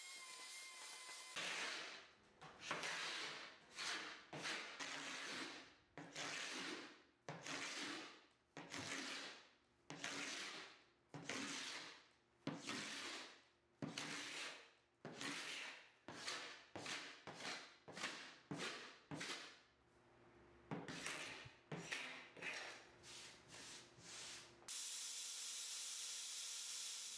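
Hand paint scraper drawn over old painted wood in repeated strokes, about one a second and quickening past the middle, stripping layers of enamel and primer. A steady hiss takes over near the end.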